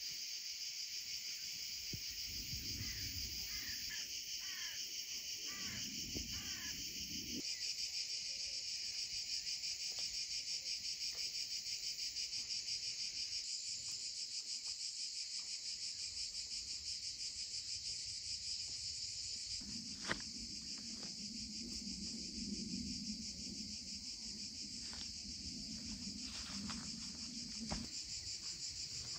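A steady chorus of field insects chirring, a dense high trill made of rapid pulses. A few short falling chirps sound in the first several seconds, and a low hum joins in for the last third.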